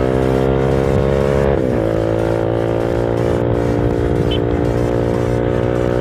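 Motorcycle engine running steadily while riding, with a brief dip in pitch about a second and a half in, as at a gear change, before it settles back to a steady note.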